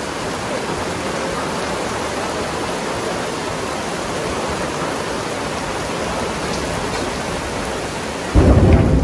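Heavy rain pouring steadily onto brick paving and standing puddles. A sudden loud low rumble breaks in near the end.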